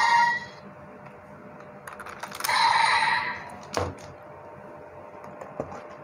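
Plastic clicks and clacks of a DX Desire Driver toy belt being handled as a raise buckle is pulled off. Short electronic sound effects play from the belt's small speaker, one ending in the first half-second and another about two and a half seconds in. A sharp click comes near four seconds in.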